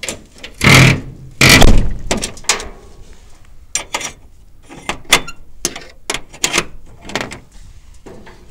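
Two loud thuds close together about a second in, then a run of irregular footsteps crunching and knocking over debris while walking out of the building.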